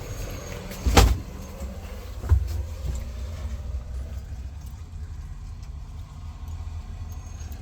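A loud thud about a second in and a smaller knock a little over a second later, over a steady low rumble.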